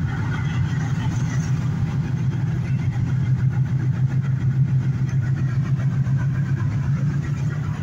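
Steady low drone of a car driving at highway speed on a wet road, heard from inside the cabin: engine and tyre noise.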